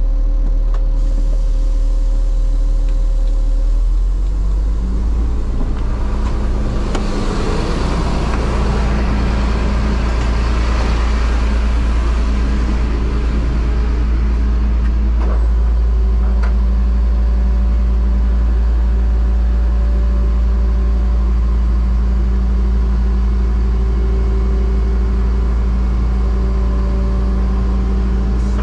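Rollback tow truck's engine running with the bed's hydraulics engaged; its pitch steps up about four to five seconds in and then holds steady while the bed tilts and slides back. A broad hiss swells and fades between about six and thirteen seconds in.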